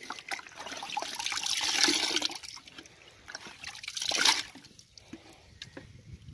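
Water splashing and pouring in a plastic bucket as it is scooped up by hand and poured back in to aerate it for live carp. The pouring swells for a couple of seconds near the start, with a louder splash about four seconds in.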